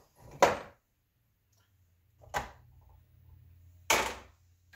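Three sharp knocks of tools and engine parts being handled on a workbench, the first the loudest, spaced about two seconds and then a second and a half apart. A faint low hum sits under the last two.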